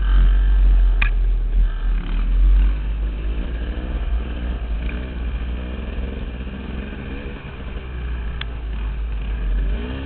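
KTM dirt bike engine running under a rider, its pitch rising and falling with the throttle, under heavy wind rumble on the microphone. A sharp click about a second in and another near the end.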